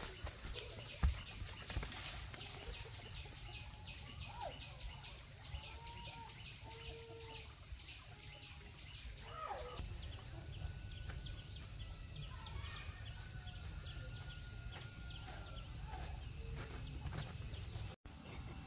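Outdoor countryside ambience: a steady high-pitched insect drone with a few short bird calls over a low background rumble.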